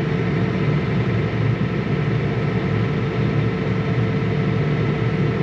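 John Deere 9220 tractor's diesel engine running, heard from inside the cab as a steady low rumble with a faint steady whine over it.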